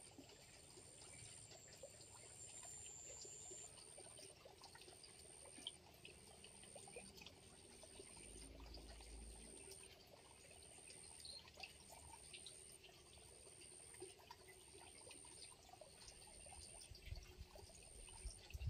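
Faint trickling water running into the fish pond, with a high, thin tone pulsing evenly about one and a half times a second above it and small scattered clicks.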